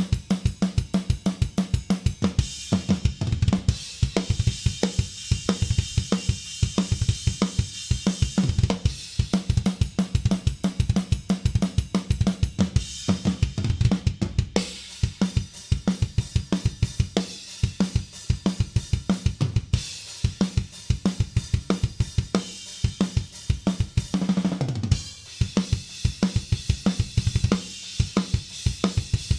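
Acoustic drum kit played alone at a fast tempo: rapid bass drum strokes and snare hits under a wash of cymbals. About 24 seconds in, the cymbals drop out for a short tom fill that falls in pitch, and then the beat returns.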